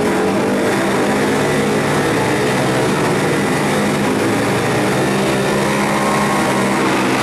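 Several vintage flat-track motorcycle engines running together at the start line, a steady loud drone of overlapping engine notes that drift a little in pitch.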